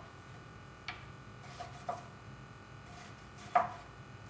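Chef's knife slicing an onion thinly, each stroke ending in a sharp knock on the cutting board: a few separate knocks, the loudest near the end.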